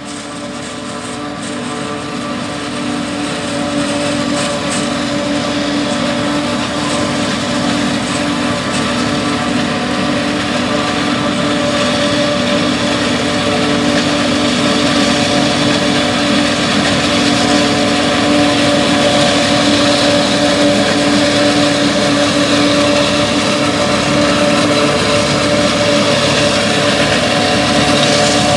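A 290 hp John Deere 5830 self-propelled forage harvester chopping corn, its engine and chopping machinery running steadily with a strong hum, together with the tractor pulling the silage wagon alongside. The sound grows louder over the first several seconds as the machines come closer.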